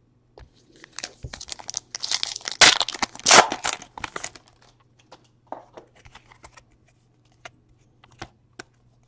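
Foil wrapper of a baseball card pack torn open and crumpled: a loud crinkling tear for about three seconds, then a few short clicks and slides as the stack of cards is handled.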